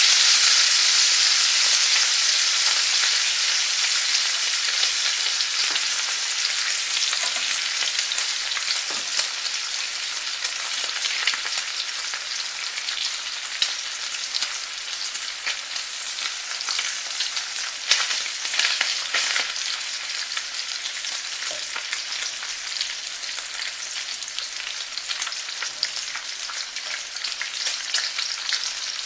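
Food sizzling and frying in hot oil in a pan, a steady hiss with scattered small crackles and pops. It is loudest at first and eases off a little.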